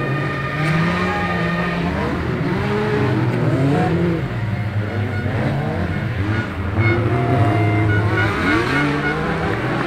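Several dirt-track race cars running at full throttle, their engines rising and falling in pitch, with more than one engine heard at once.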